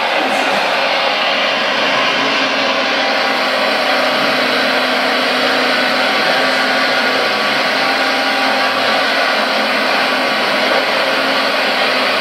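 Premacon Liebherr R956 RC excavator's sound module playing a steady diesel-engine run through the model's speaker while the machine digs: a constant, even whirring.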